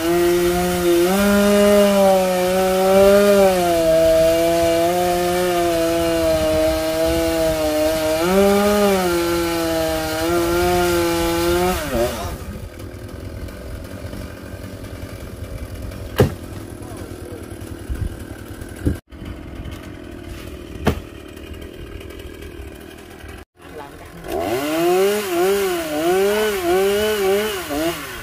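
Two-stroke chainsaw running hard while cutting wood, its pitch rising and falling under load. After about twelve seconds it falls much quieter, with a few sharp clicks. Near the end it is revved up and down in quick blips.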